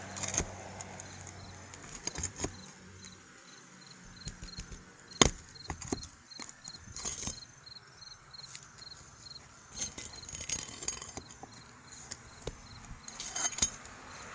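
Scattered knocks, taps and scrapes of hands and tools working on asphalt roof shingles, with one sharp knock about five seconds in. A faint high pulse repeats about three times a second underneath.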